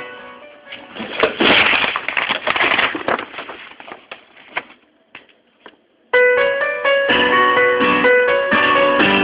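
Instrumental break in a pop song, led by piano and electric keyboard. It thins to sparse notes and nearly drops out midway, then the full keyboard accompaniment comes back in about six seconds in.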